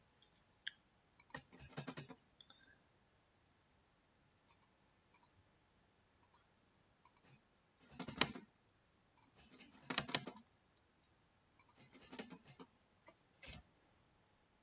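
Typing on a computer keyboard in short bursts of keystrokes with pauses between, the loudest clusters about 8 and 10 seconds in.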